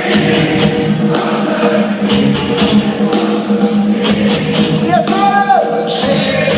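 Live band playing a German party song with a steady drum beat, about two to three strokes a second, and voices singing along.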